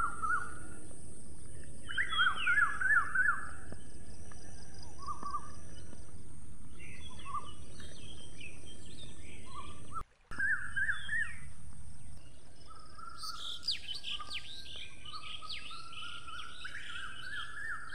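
Wild birds calling outdoors: clusters of short chirps and quick trills, with a busier run of rapid falling chirps in the last few seconds, over a steady outdoor background hiss. The sound cuts out for a moment about halfway through.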